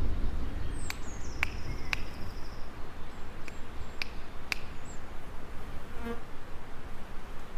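Insects buzzing, bees or flies, with birds giving sharp high chirps and a short high trill in the first half.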